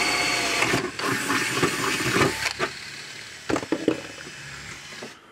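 Cordless drill running in two bursts, its bit turning against the sheet-metal case of a Parmak Solar Pak fence charger; it stops about two and a half seconds in. A few light knocks follow as tools are handled.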